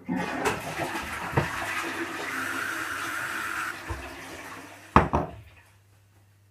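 Toilet flushing: a sudden loud rush of water that runs for about four seconds and then fades. About five seconds in come two sharp knocks close together.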